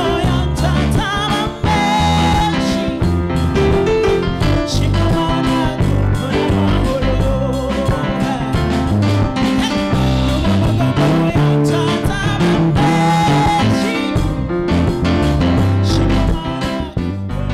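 Gospel choir singing with lead voices on microphones, over a live band with bass and a steady drum beat.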